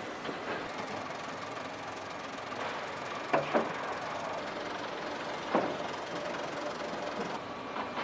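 Hot-forging line for crawler-track links running with a steady machinery din, broken by sharp metal clanks: two close together about three and a half seconds in and another about five and a half seconds in.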